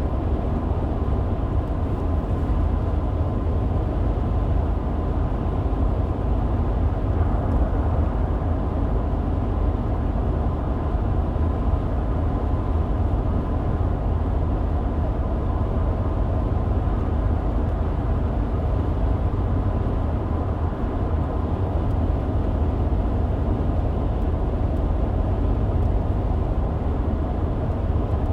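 Car driving at a steady pace, heard from inside the cabin: a steady low rumble of road and engine noise with a faint whine, no changes.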